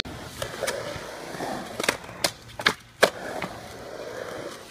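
Skateboard wheels rolling on concrete skatepark ramps, with a series of sharp clacks from the board, about seven of them in the first three and a half seconds.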